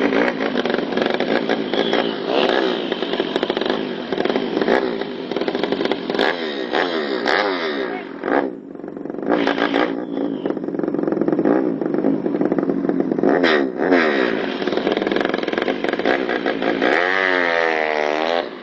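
200cc drag bike engine being revved hard again and again, its pitch rising and falling with each blip. The revs dip briefly about eight seconds in, and there is a long sweep up and back down near the end.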